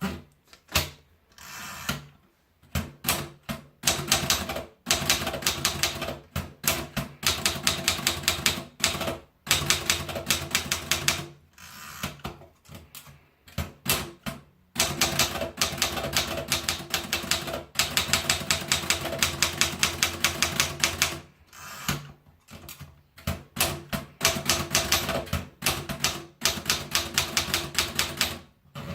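Remington Ten Forty typewriter being typed on in fast runs of keystrokes, several clicks a second, broken by short pauses between runs.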